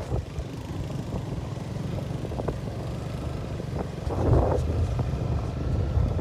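Wind buffeting the microphone of a moving motorcycle over the low rumble of the bike on a dirt road, with a louder gust about four seconds in.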